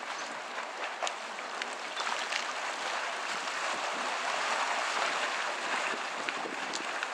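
Dragon's Mouth hot spring churning: hot water sloshing and splashing in its steaming cave, a steady rushing wash with scattered small splashes, swelling slightly midway.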